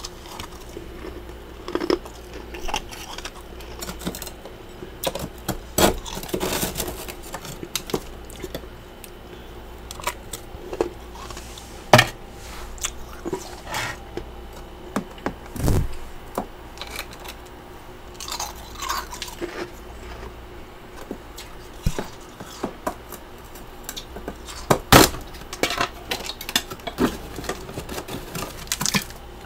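Chunks of freezer frost being crunched and chewed: irregular crisp crunches and sharp crackles, with a few louder bites.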